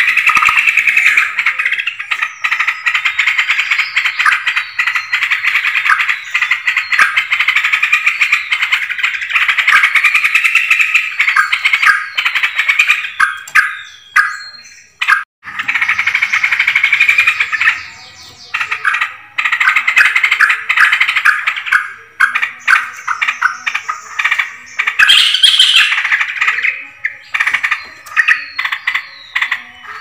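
Yellow-vented bulbuls (trucukan) giving loud, continuous bubbling chatter, several birds calling over one another, with a short break about halfway through. It is the kind of recording used as a lure call to draw bulbuls in for trapping.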